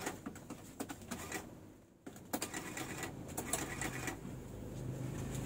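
Desktop printing calculator being keyed and printing: runs of quick mechanical clicks and chatter, with a short pause about two seconds in and a denser run just after.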